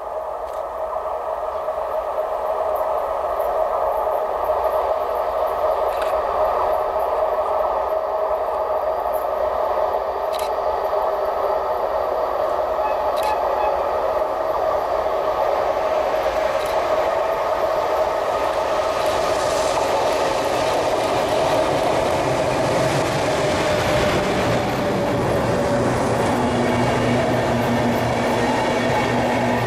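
Electric-hauled train led by a DB class 103 electric locomotive approaching along the line and then passing close by with its passenger coaches. The rolling noise broadens and grows fuller over the last third as the train arrives and the coaches go past.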